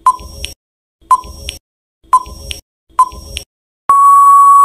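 Quiz countdown timer sound effect: four short electronic beeps, one a second, each with a ticking rattle, then a long steady buzzer tone about a second long signalling that time is up.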